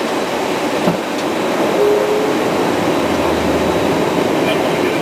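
Steady rushing noise inside the cockpit of a Dassault Falcon 2000LX twin-turbofan business jet on approach: airflow over the airframe mixed with the engines.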